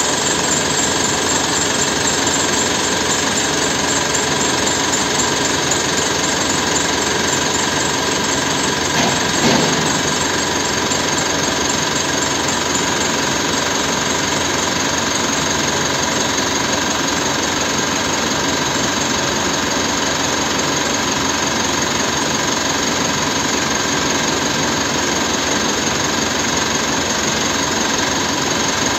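Mitsubishi Pajero Sport Dakar's diesel engine idling steadily with a clattering knock, heard with the hood open. A brief louder bump comes about nine and a half seconds in.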